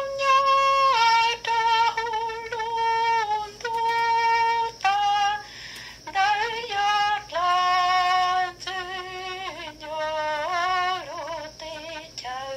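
A woman singing a slow melody unaccompanied, holding long notes with a light vibrato and pausing briefly between phrases.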